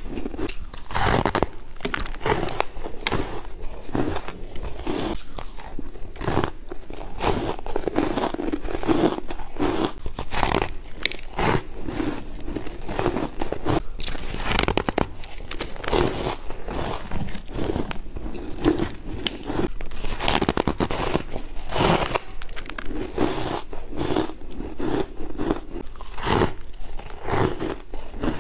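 Close-miked biting and chewing of powdery ice: many irregular crunches, one after another.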